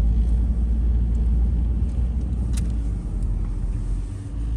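Pickup truck idling, a steady low rumble, with a single sharp click about two and a half seconds in.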